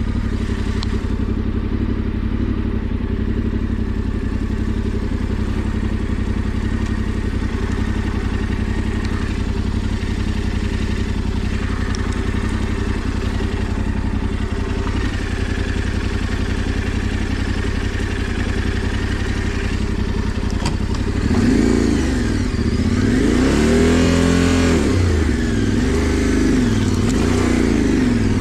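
Yamaha Ténéré 700's parallel-twin engine running at low, steady revs. About three quarters of the way in it revs up and down several times, getting louder.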